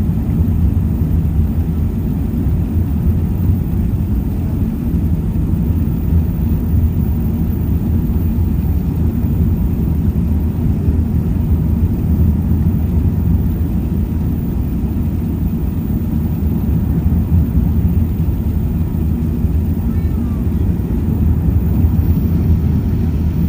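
Airbus A380 jet engines at takeoff power: a loud, steady, deep rumble with a low hum that holds without letting up.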